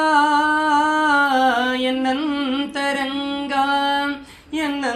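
Unaccompanied solo voice singing a line of a Kannada devotional song in long, drawn-out, ornamented notes, with a short break for breath about four and a half seconds in.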